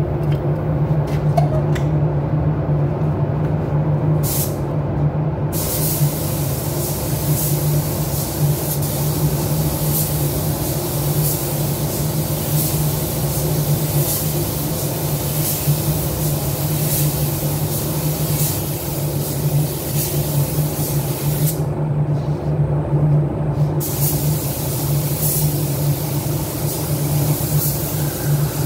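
Compressed-air paint spray gun hissing as it sprays clearcoat onto a car, over a steady low machine hum. The gun hisses briefly about four seconds in, sprays steadily from about five seconds on, and stops for about two seconds before starting again.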